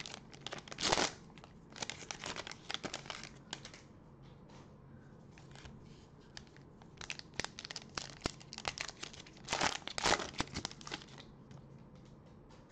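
Plastic cello wrappers of trading-card packs being torn open and crinkled by gloved hands, in irregular bursts of crackling that are loudest around ten seconds in.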